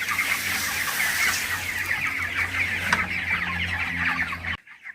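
A crowded flock of young chicks, under four weeks old, peeping together in a dense, continuous chorus over a steady low hum. It cuts off suddenly near the end.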